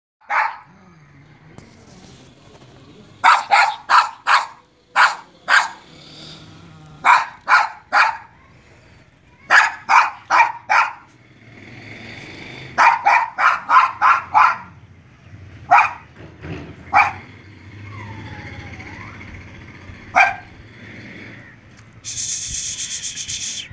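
White spitz-type dog barking: short, sharp barks in quick runs of two to six, with pauses between, then single barks further apart. Near the end a rough rubbing noise starts.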